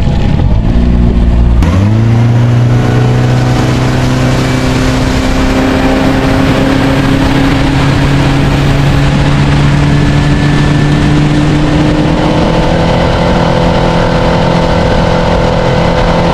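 Outboard motor on a bass boat throttling up from low speed: its pitch jumps, then climbs slowly as the boat gets up to speed, and it runs steadily under a rush of wind and water. The tone shifts about three-quarters of the way through.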